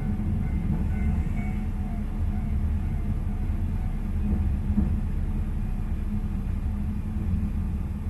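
Steady low rumble of a single-car diesel railcar running along the track, heard from inside the carriage, with a faint high whine in the first couple of seconds.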